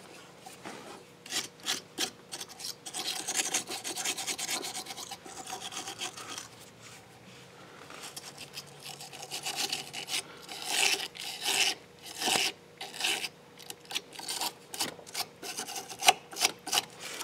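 Small wire brush scrubbing corrosion off a battery cable terminal: quick, irregular scraping strokes of wire bristles on metal, with a brief lull partway through.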